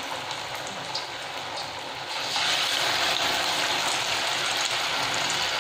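Hot oil sizzling steadily around rice-flour-battered cutlets deep-frying in a pan. The sizzle grows louder about two seconds in, as another battered cutlet goes into the oil.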